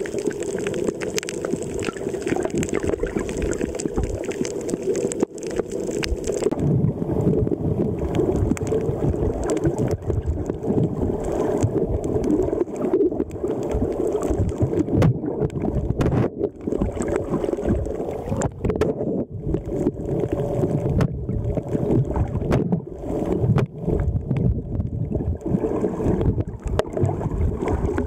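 Muffled underwater rush and churning of water over a waterproof camera held by a swimming snorkeler, recorded from under the surface, with scattered clicks and bubbling. About six seconds in the churning turns deeper and heavier.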